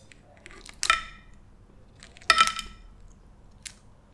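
Two sharp clinks with a short ring, about a second in and again just past two seconds, with a few fainter clicks between, as cooked blue crab and its shell are handled over a metal serving tray and glass dish.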